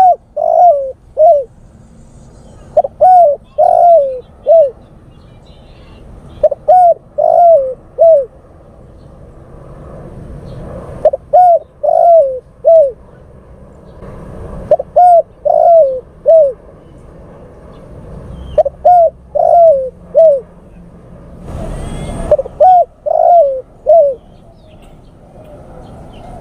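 Male spotted dove cooing: a phrase of three or four coos, repeated seven times about every four seconds. This is the male's call to attract a female.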